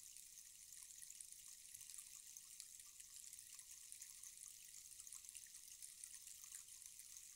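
Rainstick held upright, its fill trickling down inside in a faint, steady patter of many fine ticks, like light rain.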